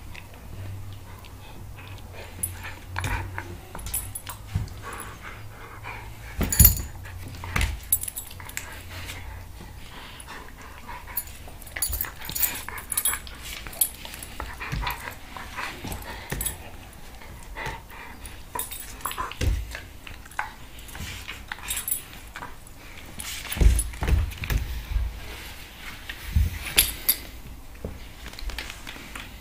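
A German Shepherd and a cat play-wrestling on a hardwood floor: scattered scuffles, taps and claw scrapes, a few louder thumps, and occasional noises from the dog.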